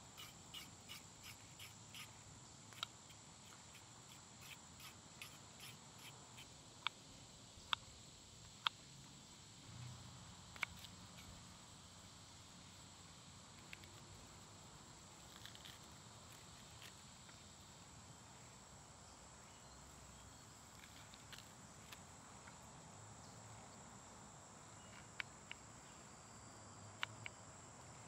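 A small knife slicing a shallot on a wooden cutting board: scattered sharp taps of the blade on the board, a quick run of light taps at the start, a few louder ones over the next ten seconds and more near the end. Insects drone steadily and high-pitched underneath.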